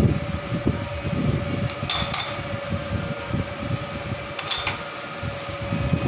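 Small milling machine's electric motor running steadily, a constant hum over a low rumble. A few short, sharp clicks cut through it: two about two seconds in and one about four and a half seconds in.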